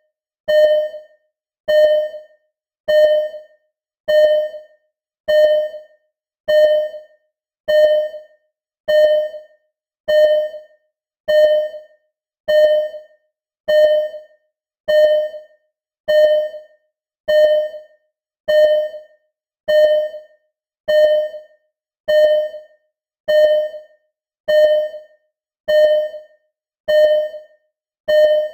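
Simulated hospital heart monitor (ECG) beeping: a short, clean electronic tone that fades quickly, repeating steadily about once a second.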